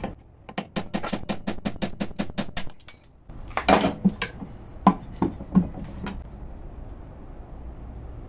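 Steel chisel scraping and chipping at a cheap CDI's hard potting of sand, glass and stone in a bench vise: a rapid run of clicks, about nine a second, then several louder crunches and knocks as the cracked pieces break away and are handled. A low steady rumble follows.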